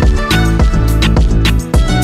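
Upbeat background music with a steady drum beat.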